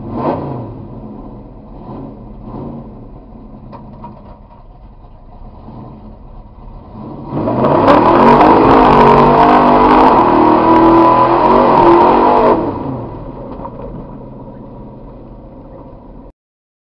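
Ford 4x4 mud truck's engine running low with a couple of quick throttle blips, then going to full throttle about seven seconds in as it charges through the mud pit. The revs rise and fall under a loud wash of spinning tyres, with mud clattering against the body. After about five seconds it backs off and runs more quietly until the sound cuts off suddenly near the end.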